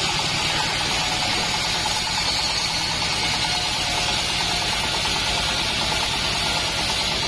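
Assembled bandsaw mill running steadily, its engine giving a rapid low pulse under a steady hiss.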